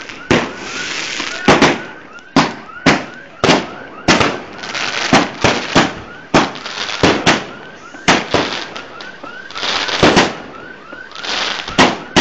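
Fireworks going off at close range: a rapid, irregular series of loud bangs, about one or two a second, with hissing and crackling between them.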